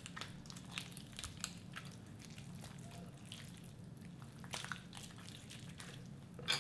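Raw chicken being pulled and broken apart by hand: faint wet squelching of skin and flesh with a few small sharp cracks as the breast is broken away from the backbone.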